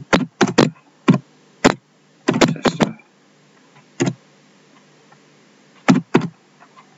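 Computer keyboard keystrokes, about a dozen, typed slowly and unevenly, with a quick run of several a little after two seconds and a pause of nearly two seconds before the last two.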